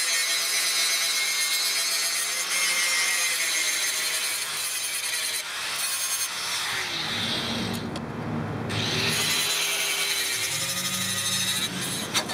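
Angle grinder with an abrasive disc grinding the bevel into an O1 tool-steel knife blade: a steady high grinding hiss of the disc on steel, which breaks off briefly about eight seconds in and then resumes.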